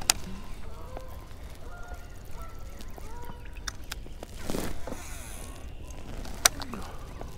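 Waterfowl calling in short honks, several times over. Two sharp clicks come through, the louder one near the end, and there is a brief rushing swish about halfway through.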